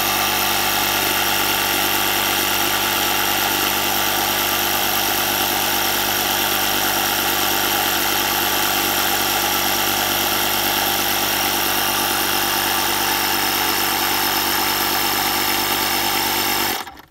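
Ryobi 18V cordless tyre inflator's compressor running steadily as it pumps up a car tyre, a constant unchanging motor-and-pump drone. Near the end it cuts off suddenly: the inflator switching itself off on reaching its set pressure of 35 psi.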